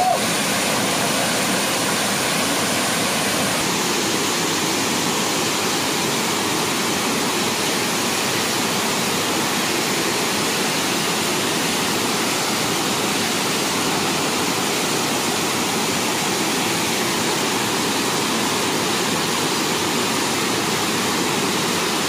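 Waterfall pouring steadily over rock into a pool, a constant rush of falling water.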